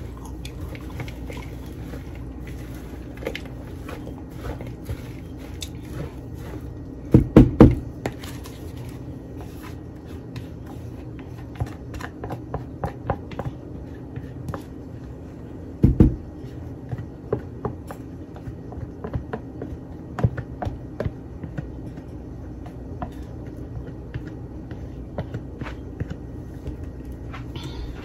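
Salad being stirred by hand in a large bowl: a spatula or spoon working through apple pieces, mini marshmallows and whipped topping with soft scraping and light clicks, and a few dull knocks, a quick cluster about seven seconds in and one more near the middle. A steady low hum runs underneath.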